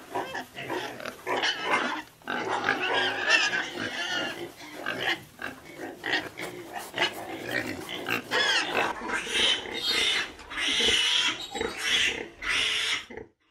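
Pigs and piglets grunting and squealing in a quick run of short calls, the highest-pitched squeals coming in the last few seconds.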